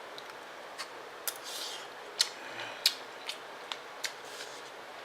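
A spoon clicking and scraping against the dish as food is scooped up: about seven sharp, separate clicks with a short scrape about a second and a half in.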